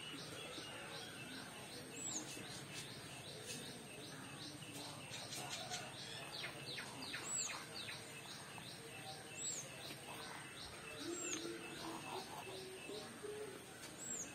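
Small wild birds chirping rapidly and continuously, busiest about halfway through, with a short high call repeated about every two seconds.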